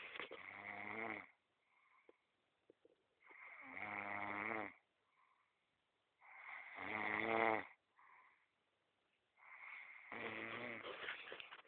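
Slow, steady snoring from a sleeper: four long, rasping snores, each lasting about a second and a half, about three seconds apart.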